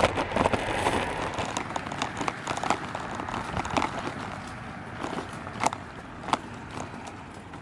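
Stroller wheels rolling along a concrete sidewalk: a steady rolling rumble with scattered clicks and rattles, growing quieter through the stretch.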